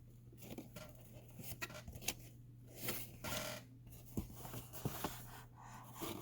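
Cardboard shipping box being worked open by hand: scattered light taps, scrapes and short rustles.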